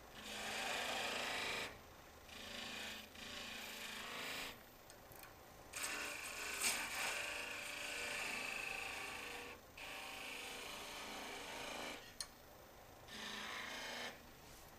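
A woodturning tool cutting a V groove into spinning mesquite on a wood lathe. It comes as a series of hissing, scraping cuts, each one to a few seconds long, with short breaks between.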